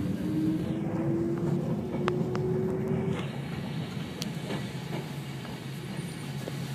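Hakone Tozan Railway electric train running on the track, heard from inside the driver's cab: a steady rumble with a rising whine that stops about three seconds in. A few sharp clicks sound over it.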